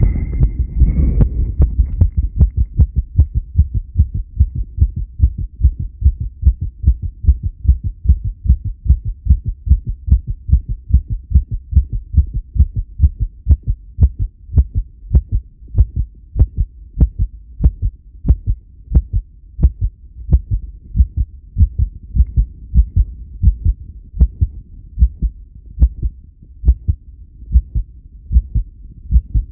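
Human heartbeat, a steady run of low double thumps (lub-dub), recorded during a long breath hold. A brief noisy stretch at the very start gives way to clean beats about a second in.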